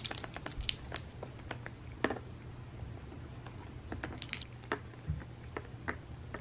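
Orange tabby cat chewing and crunching food off a tray, making irregular small crunches and clicks.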